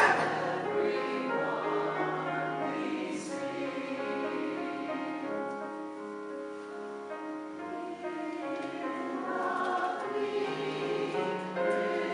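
Community chorus singing in several parts, holding long chords. It grows softer toward the middle and swells again in the last few seconds.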